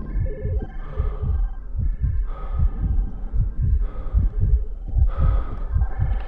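Heartbeat sound effect: low double thumps repeating quickly and steadily, like a pounding heart.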